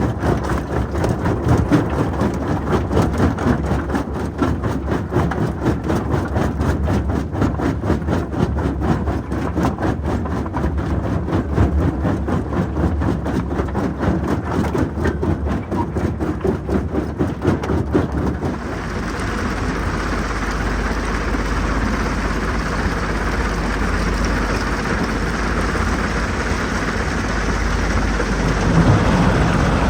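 Jonsson 1208 mobile jaw crusher running with its diesel engine, a loud machine noise that pulses rapidly. About two-thirds of the way in it changes to a steadier rushing noise.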